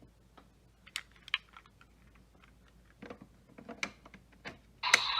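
Plastic clicks and snaps from handling a Kamen Rider toy belt and its raise buckle. About five seconds in, the toy's loud electronic sound effect starts.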